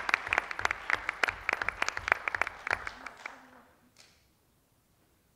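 Audience applauding, the clapping thinning out and dying away about three and a half seconds in.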